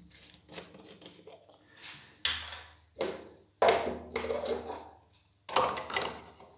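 About six short knocks and clatters of a plastic funnel and other small items being handled and set down on a tabletop, ending with the funnel lifted over the pressure washer's oil filler.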